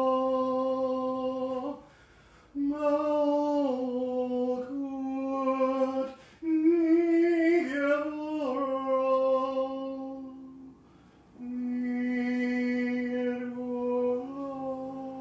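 A single voice chanting or humming long held notes without clear words, each note lasting one to three seconds and shifting pitch between them, with short pauses for breath.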